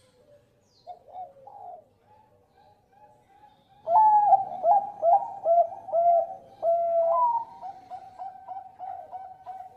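Zebra dove (Bangkok-type perkutut) singing. After a few soft notes, about four seconds in it breaks into a loud run of quick rolling coos, which trail off into softer, faster notes near the end.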